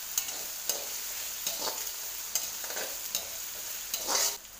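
Cubed potatoes and onions sizzling in oil in a kadai while a ladle stirs them, with repeated scrapes and clicks of the ladle against the pan. Near the end a louder scrape, then the sizzling cuts off suddenly.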